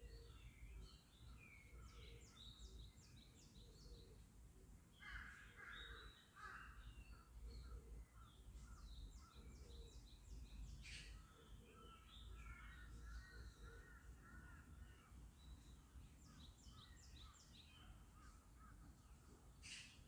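Faint birdsong in park trees: several small birds chirping and trilling in quick high notes, with a harsher, lower bird call about five seconds in, over a steady low background rumble.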